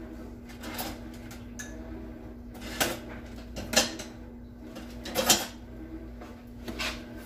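Kitchen clatter of dishes and utensils being handled: a few sharp knocks and clinks, three louder ones in the middle, over a steady low hum.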